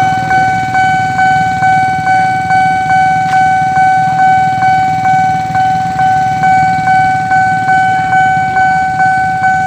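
Railroad level-crossing warning bell ringing continuously, a single steady pitch struck about twice a second, each strike fading before the next.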